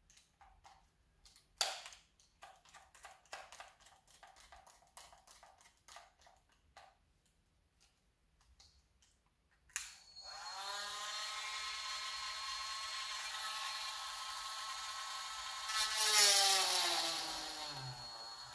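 Cordless rotary tool: small clicks and rattles as a bit is fitted, then about ten seconds in the motor switches on and runs with a steady whine. Near the end it grows louder and the pitch sags as the tool is pressed to the work.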